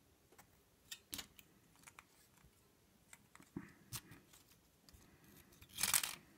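Small metal clicks and taps of an ASSA Ruko 2 padlock cylinder's parts being handled with tweezers as the lock is taken apart, scattered and irregular, with a louder rustle about six seconds in.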